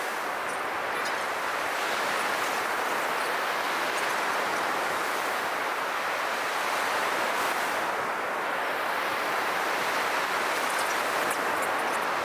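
Ocean surf breaking on a sandy beach: a steady rush of noise with no single wave crash standing out.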